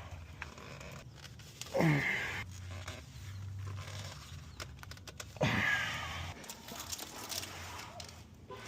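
A man grunts with effort twice, each a short groan falling in pitch, straining to break loose a stuck oil filter.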